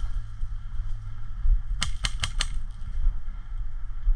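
Airsoft gun firing a quick string of about five shots, about two seconds in, over a steady low rumble.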